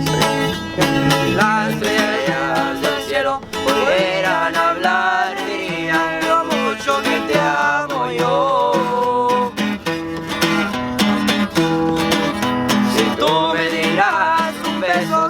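A band playing an instrumental passage of a Mexican regional love song: plucked guitar runs over strummed chords and a bass line.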